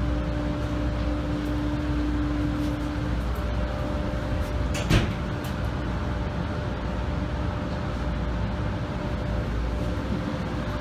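Automatic car wash machinery running steadily, heard through a viewing window: motors humming while brushes and water sprays work over a car. A hum drops out about three seconds in, and there is one brief loud hit about five seconds in.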